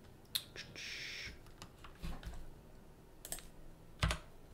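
A handful of scattered clicks from a computer keyboard and mouse, the loudest near the end, with a short soft hiss about a second in.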